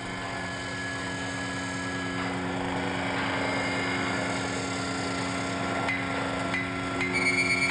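Factory machinery din: a steady low mechanical drone with a rough grinding noise over it. About seven seconds in, a high whine starts and the noise begins pulsing rapidly.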